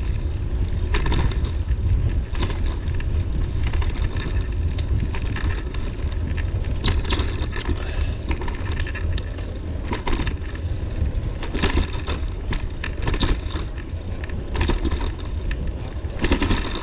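Wind buffeting the microphone while riding a bicycle: a steady low rumble, broken by many short rattling noises.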